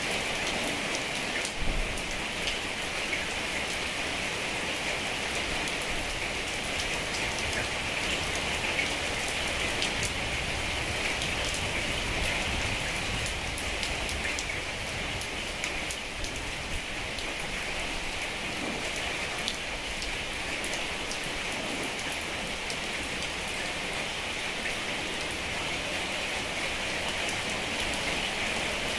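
Heavy rain falling steadily, a dense even hiss full of fine drop patter. One drop lands louder about a second and a half in.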